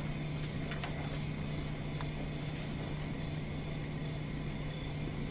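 Steady low hum with hiss: room tone, with a few faint ticks in the first two seconds.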